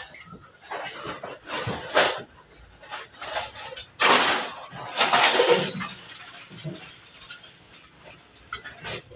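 Scrap iron being stacked in a truck's cargo bay: pieces of metal clanking, clinking and scraping against each other at irregular intervals, with the loudest clatter about four seconds in and again a second later.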